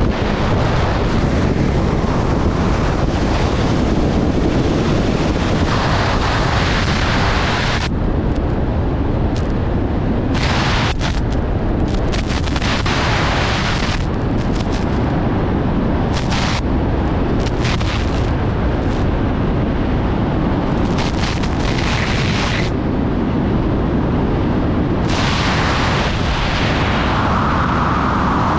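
Wingsuit flight airflow buffeting the camera's microphone: a loud, steady rumbling rush of wind, its higher hiss dropping away about eight seconds in and then swelling back several times.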